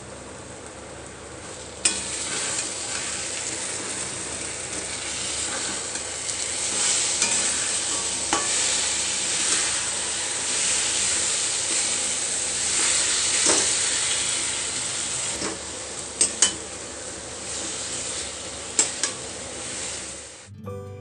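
Food frying in hot oil in a pan, sizzling steadily from about two seconds in while being stirred, with a few sharp clicks of the utensil against the pan.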